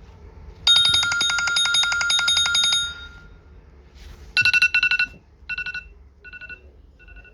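iPhone ringtones playing: a rapid trilling ring about two seconds long, then after a pause a quick burst of two-pitch beeps that repeats three more times, fainter and shorter each time, like an echo.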